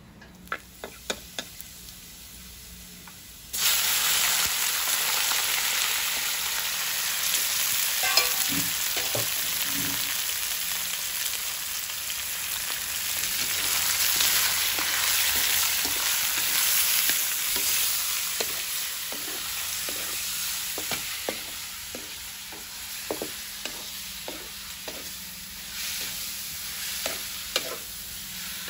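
A few light clinks of utensils, then about three and a half seconds in a loud sizzle starts suddenly as sliced pork and shrimp go into hot oil in a wok. The frying continues, with the clicks and scrapes of chopsticks against the wok as the meat is stirred, coming more often near the end.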